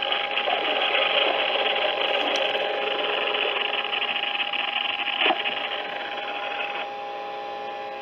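Weather alert radio receivers giving off a steady static hiss with a faint steady whine running through it. Part of the hiss cuts off about seven seconds in.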